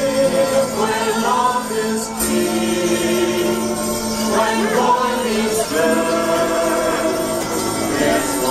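Music with singing voices over a steady instrumental backing.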